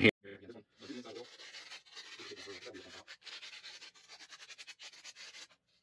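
Hand sanding a clear plastic cup with a round sandpaper disc: quick, short rubbing strokes that roughen the surface for epoxy to grip. The strokes stop about half a second before the end.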